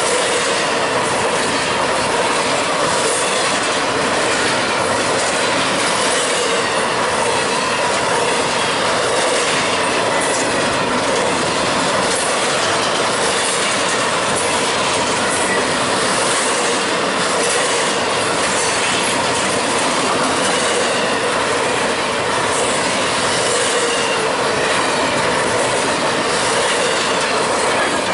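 Double-stack intermodal freight train of container well cars passing close by: a steady, loud noise of steel wheels rolling on the rails and the cars rattling.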